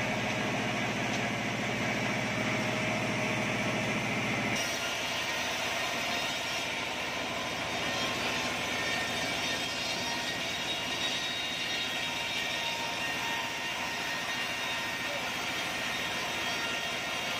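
Forklift engine running steadily, then, from a cut about four and a half seconds in, a sawmill bandsaw running and cutting through an acacia log with a steady, even noise.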